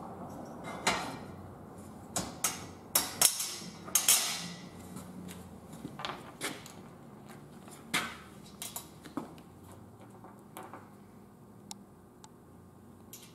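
Steel tree-stand parts and bolts knocking and clinking together as they are fitted by hand: a run of sharp metal clanks, thickest in the first few seconds, then sparser and fainter.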